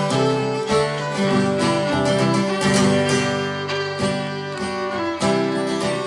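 Acoustic guitar and fiddle playing an instrumental folk tune together, the fiddle bowing the melody over the guitar's chords and bass notes.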